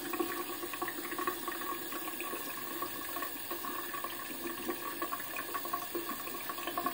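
Bathroom sink tap running steadily, with faint scratchy strokes of a disposable Bic razor over lathered stubble.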